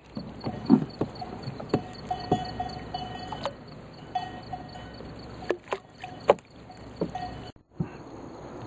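A trammel net being hauled hand over hand into a small boat, giving scattered sharp knocks and taps, with an intermittent steady-pitched chirping in the background.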